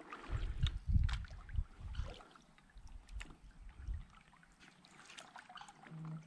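Kayak paddling: the paddle dipping and splashing in the water, with scattered short clicks and drips. Low rumbling comes and goes in the first two seconds and again around three to four seconds in.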